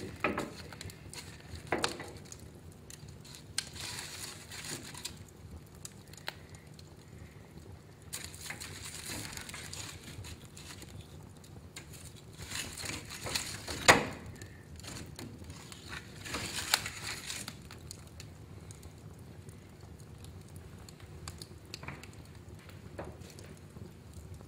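Wood fire burning in a fireplace: irregular crackling with scattered sharp pops, the loudest about fourteen seconds in.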